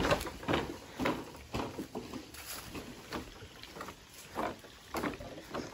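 Footsteps on dry leaf litter and bare ground, walking at an even pace of about two steps a second.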